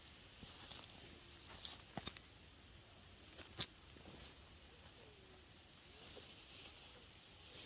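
Faint rustling and handling of celery plants during a hand harvest, with a few sharp snaps; the loudest comes about three and a half seconds in.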